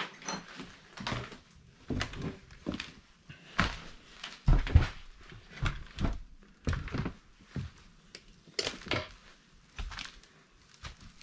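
Footsteps over a floor strewn with papers, plaster and broken wood, irregular knocks and crunches about one or two a second.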